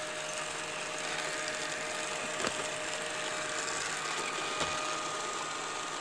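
Beko RS 2121 robot vacuum cleaner running across a wooden floor with a steady motor hum and whine, and a single click about halfway through.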